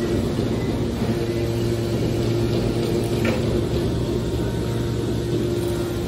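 Hydraulic power unit of a heavy-duty metal scrap baler running with a steady hum, with a brief click about three seconds in.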